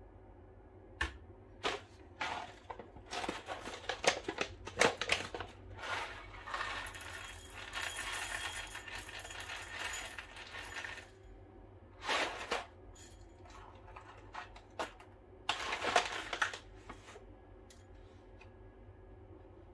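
Whole coffee beans poured from a bag into a small ceramic bowl. A few light knocks come about a second in, then several seconds of beans rattling into the bowl with the bag crinkling, and two shorter pours near the end.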